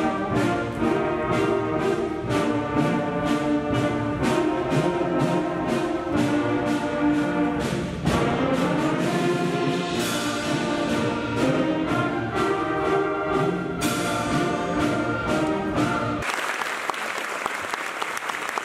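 Middle-school concert band of woodwinds, brass and percussion playing the close of a piece with a steady beat. The music cuts off about two seconds before the end and the audience applauds.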